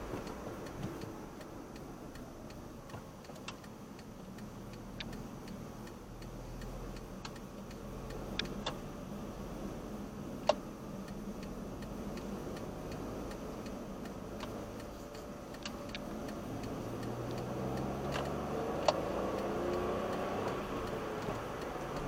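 Car cabin noise from the engine and tyres as the car slows through a roundabout and then accelerates away, the engine note rising near the end. Scattered light ticks run through it, with a couple of sharper clicks, one about ten seconds in.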